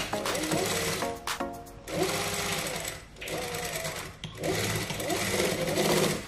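Industrial lockstitch sewing machine running as it stitches cotton fabric, in about four spurts with short pauses between them.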